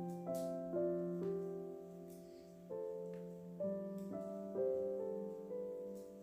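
Background piano music: slow, gentle chords with notes struck every half second or so.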